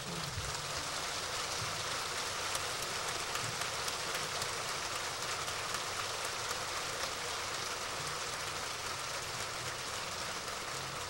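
Audience applauding steadily, dense clapping that holds at an even level.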